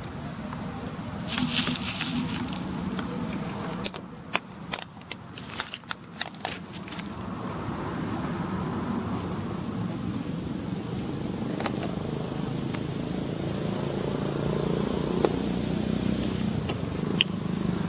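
A plastic water bottle crackling and clicking as a macaque handles it and twists at the cap, with a quick run of sharp clicks about four to six seconds in. A steady drone sits underneath.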